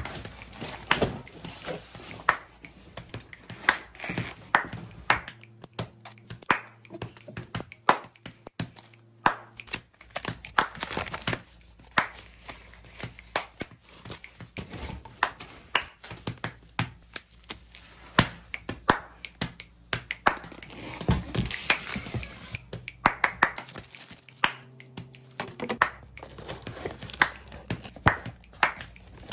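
Cardboard box flaps being bent and pulled open and foam packing wrap crinkling and tearing as it is stripped off a boxed bicycle, a run of many short sharp crackles and snaps with rustling between them.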